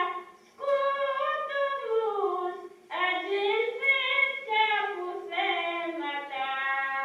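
A woman singing an Azov Greek song unaccompanied, heard as a recording played back. She sings long, slow, gliding phrases, pausing for breath just after the start and about three seconds in.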